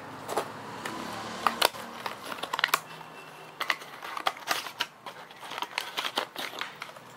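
Plastic lure packaging being handled and opened by hand: irregular small clicks, snaps and crinkles.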